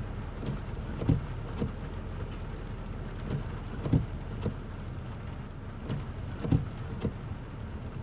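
Car windshield wipers sweeping across a wet windshield, knocking at the ends of their strokes, the loudest knock coming about every two and a half to three seconds. Under it runs a steady low hum.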